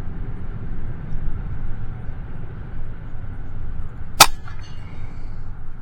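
A single shot from an FX Impact M3 .22-calibre PCP air rifle about four seconds in: one sharp crack with a brief ring after it, over a steady low rumble.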